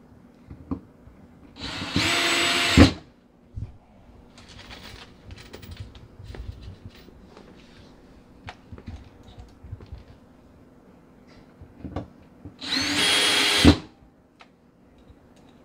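Cordless drill-driver driving screws through the pull-out trash can slide's rail into the cabinet floor: two runs of about a second each, one about two seconds in and one near the end, each ending with a sharp knock. Light clicks and handling noise of the metal rail come in between.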